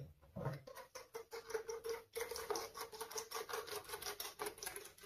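Spring whisk beating the egg, sugar and cornstarch mixture as hot milk is whisked in for custard: a quiet, rapid, even run of light strokes against the bowl.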